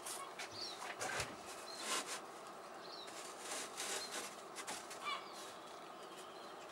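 Handling noise from a stiff foam board being flexed by hand over a wooden form: scattered soft rustles and knocks, with several short high chirps about once a second over a steady background hiss.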